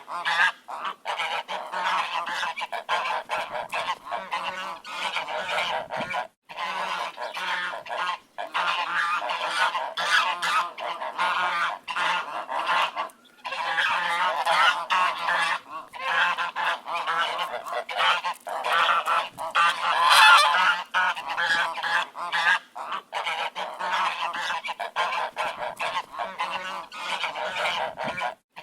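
A flock of ducks quacking continuously, many calls overlapping, broken by a few brief sudden gaps.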